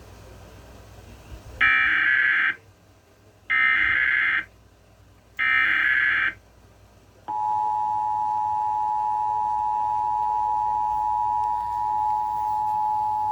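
Emergency Alert System signal: three short warbling data bursts of the SAME header, then the steady two-tone attention signal (853 and 960 Hz together) that begins about seven seconds in and holds. This marks the start of a weather alert broadcast, here a tornado warning.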